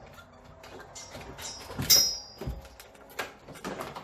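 A few handling clicks and knocks of tools and parts. The loudest is a sharp metallic clink about two seconds in that rings briefly, followed by a dull thump and another click.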